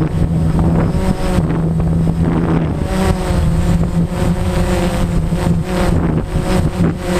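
DJI Phantom quadcopter's propellers and motors humming steadily, the pitch shifting slightly as the motors adjust, with strong wind rumbling on the microphone.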